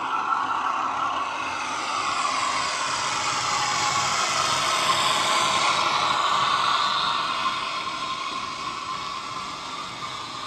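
Model Class 42 Warship locomotive's ESU LokSound decoder playing a German V200 diesel-hydraulic engine sound file through a small speaker. It grows louder as the locomotive approaches, is loudest as it passes about five to six seconds in, and fades as the coaches follow it away.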